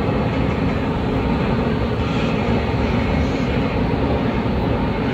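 Hurricane simulator booth's blower driving wind at roughly 60 to 75 mph: a loud, steady rush of air, heaviest in the low end, where the gusts batter the microphone.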